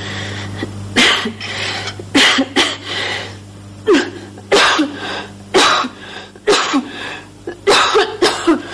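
A man's coughing fit: a run of about a dozen harsh, hacking coughs in quick clusters, starting about a second in.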